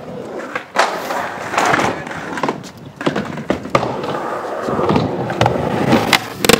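Skateboard wheels rolling over concrete, with several sharp clacks and bangs of the board on the ramp. Near the end the board scrapes along the ramp's edge in a grind or slide.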